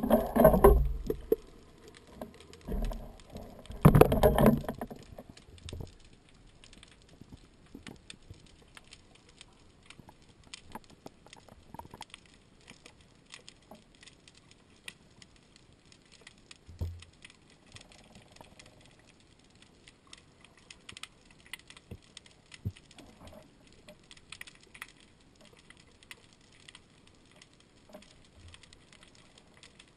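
Underwater sound heard through a camera housing: water churning at the wavy surface at the start and again about four seconds in, then a faint crackle of many small scattered clicks in the water.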